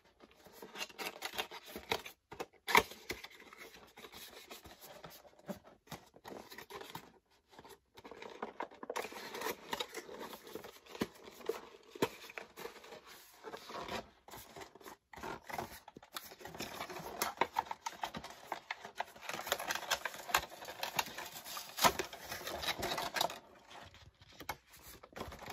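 Cardboard toy box being opened by hand: irregular scraping and rustling of the flaps and inner packaging, with scattered sharp clicks and snaps.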